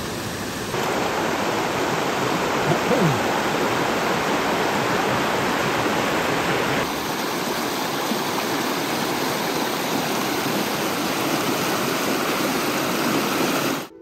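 Big Bear Falls in full flow after a night of rain: a steady, roaring rush of falling water that cuts off abruptly near the end.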